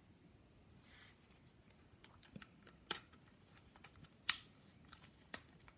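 Faint, scattered plastic clicks and snaps as the taped-and-clipped silver top frame of a DJI Mavic Air drone is pried loose from the body, the loudest crack about four seconds in.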